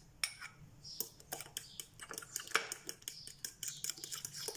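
Fork beating eggs into mashed banana in a glass bowl, the tines clinking against the glass in quick, uneven clicks.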